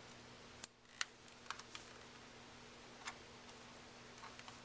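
Faint, scattered small clicks and taps of fingers handling a camera lens barrel while a vinyl skin is peeled up and restretched, over a steady low hum.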